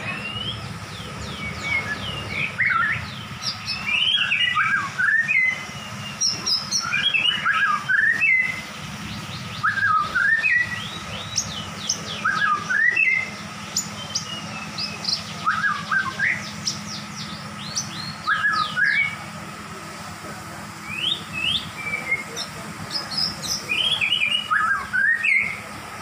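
Caged songbirds chirping and whistling in short phrases of quick sweeping notes, repeating every second or two over a steady low hum.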